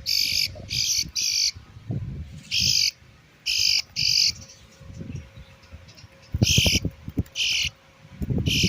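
Bluebirds squawking: about ten short, harsh calls in irregular groups of two or three. A few low knocks sound a little past the middle.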